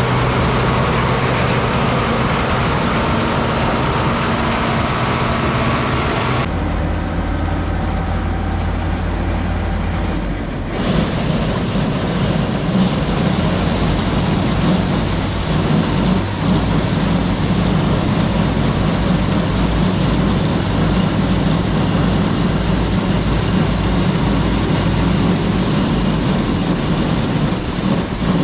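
Combine harvester running steadily under load, a loud continuous engine and machinery drone. The sound changes abruptly twice: about six seconds in it turns duller and lower, and about eleven seconds in it opens up into a broader rushing clatter.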